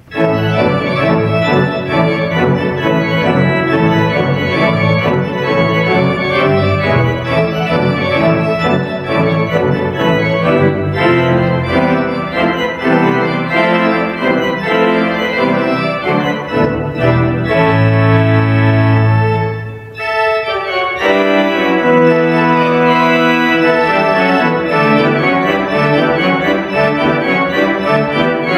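A three-manual, 40-rank Schantz pipe organ playing full, sustained chords with moving parts. There is a held low bass note, then a brief break about two-thirds of the way through before the playing resumes.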